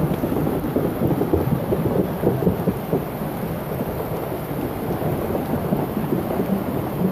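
Muddy floodwater rushing down a street, with a steady low churning, as rain falls.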